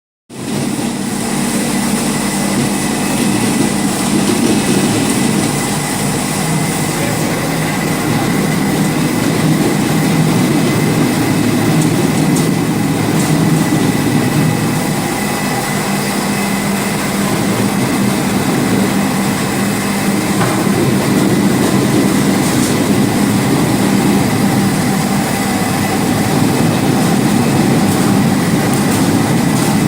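Fruit-pressing line machinery running steadily: a constant mechanical rumble and rattle with a thin, steady high whine over it.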